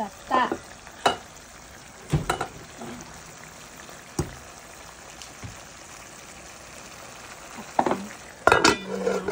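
Jackfruit chunks in a little water sizzling in a nonstick pan over high heat as they come up to the boil: a steady sizzle broken by a few sharp knocks of a utensil against the pan and a louder clatter near the end.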